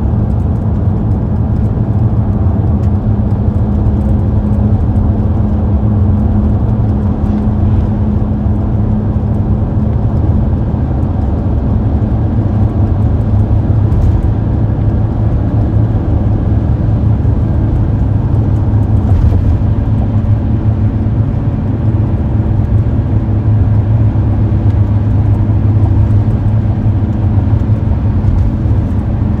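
A car driving at a steady speed: its engine and road noise hold a low, even drone throughout.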